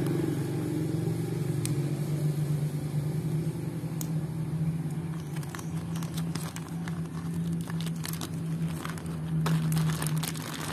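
Thin plastic packaging crinkling and crackling as a bag of toy tools is pulled open, the crackles thickening from about halfway through. Underneath runs a steady low mechanical hum.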